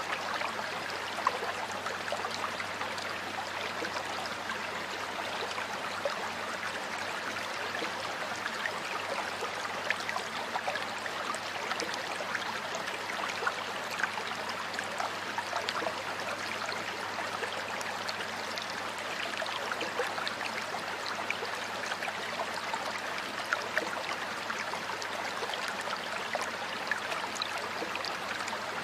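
Stream water flowing steadily: an even rush with scattered small splashes and drips standing out here and there.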